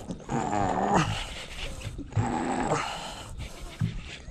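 A man groaning twice with effort as he reels in against a heavy fish on a jigging rod; the strain comes from the fish being very heavy.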